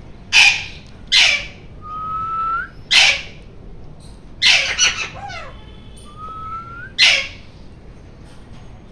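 Indian ringneck parakeet giving about six loud, harsh screeches spaced a second or two apart. Between them come two quieter, short rising whistles.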